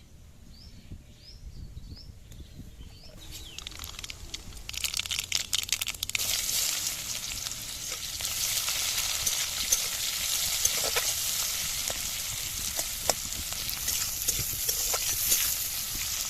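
Food frying in hot oil, sizzling, setting in about four seconds in and then staying loud, with scattered clicks of stirring in the pan.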